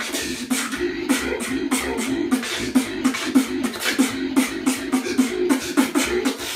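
Vocal beatboxing by one performer: sharp mouth-made drum strikes in a fast, even rhythm, with a hummed tone that shifts in pitch running underneath.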